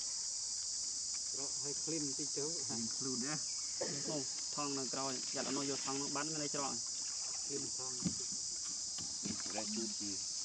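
A steady, high-pitched insect chorus, like crickets, buzzing without a break.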